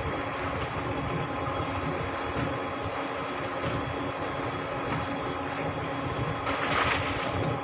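A motor running steadily with an even hum. Near the end a brief rushing splash, fitting a cast net hitting the water.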